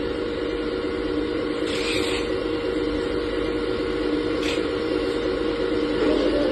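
Hydraulic remote-control model Caterpillar 374 excavator running, with a steady whine over mechanical noise that stops about six seconds in. Two brief hisses come at about two and four and a half seconds.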